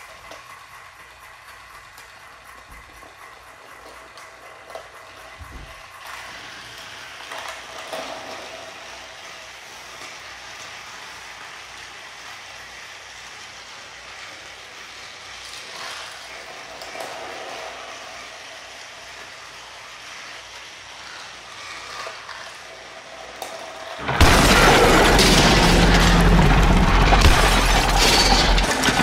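Motorized toy trains running on plastic track, their small motors whirring and wheels clattering over the joints. About 24 seconds in, a sudden, much louder crashing and shattering noise with a deep rumble starts and lasts about five seconds.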